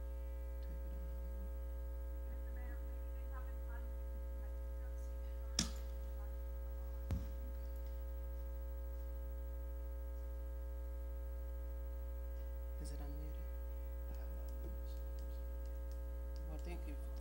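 Steady electrical mains hum on the meeting room's sound system, with two short clicks about five and a half and seven seconds in.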